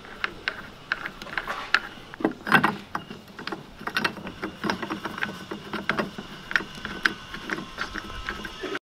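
Hard plastic parts of a Rhino-Rack roof-rack leg and clamp being handled and prised apart: irregular clicks, knocks and rattles, busiest about two and a half seconds in.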